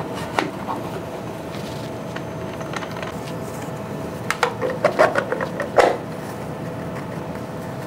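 A plastic CNC dust shoe being pushed and fitted onto the router mount by hand: a few light clicks, then a cluster of plastic knocks and clatter about four to six seconds in, over a steady faint hum.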